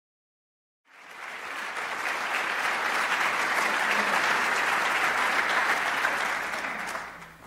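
Audience applauding. It starts about a second in, builds to a steady level and dies away near the end.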